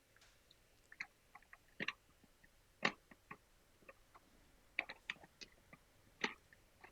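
Scattered plastic clicks and light knocks as a Kidde smoke detector is handled and attached to its ceiling mounting base, the sharpest click about three seconds in.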